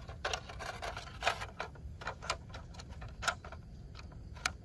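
Plastic toy parts clicking and rattling as slide pieces are handled and fitted onto a toy slide tower, with a handful of sharp clicks spread through the few seconds.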